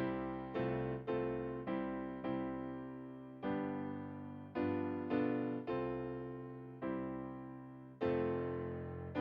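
Solo piano playing a slow piece in struck chords, about one a second, each ringing and fading before the next.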